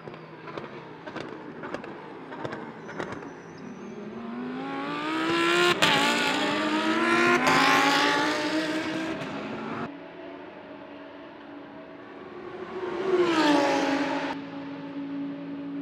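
Lamborghini Huracán Super Trofeo race car's naturally aspirated V10 accelerating hard, its pitch climbing and dropping at upshifts about six and seven and a half seconds in. Near the end another car passes with a falling pitch, followed by a steady engine drone.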